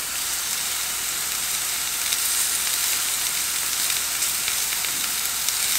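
Beef skirt steaks sizzling steadily as they sear in a hot cast-iron grill pan.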